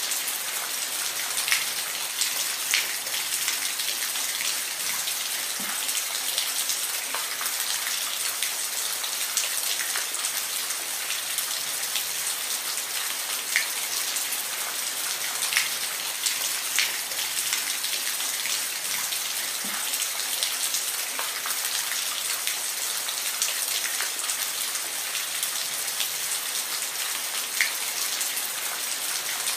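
Steady rain falling: an even hiss with individual drops ticking sharply now and then.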